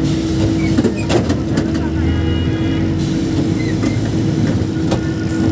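Steady engine and road rumble from inside a moving vehicle, with traffic passing outside. A few knocks come a second or so in, and a short high tone sounds about two seconds in.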